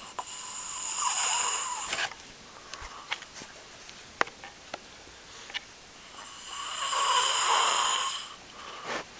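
A person snoring: two long, loud snores about six seconds apart, with a few faint clicks in between.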